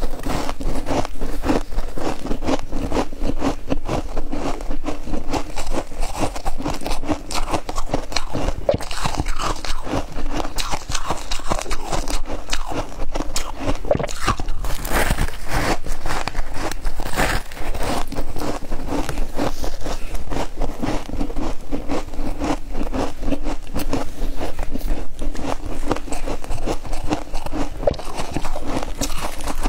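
Packed freezer frost crunching as it is bitten off a clump and chewed: a dense, continuous run of many small crunches.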